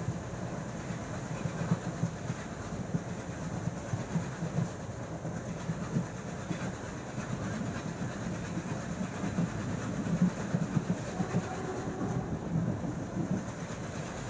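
Passenger train running along the track: a steady rumble of the coach with irregular clatter of wheels over the rails.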